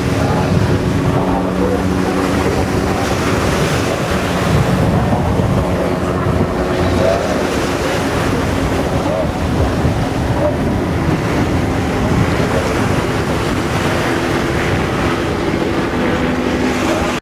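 Steady drone of racing powerboat engines mixed with a low-flying light helicopter overhead, under heavy wind noise on the microphone and the wash of the sea.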